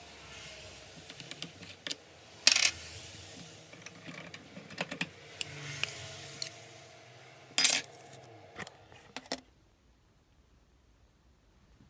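Small hard parts of a Makita 9901 belt sander clicking and clattering as they are handled during disassembly, with two louder clacks. A low background hum cuts off suddenly near the end.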